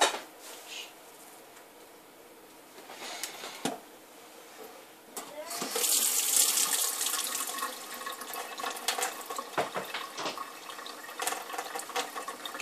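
A sharp knock at the start, then a faucet turned on a little past halfway: tap water running and splashing into a sink over hands and a bar of soap being wetted for a lather test.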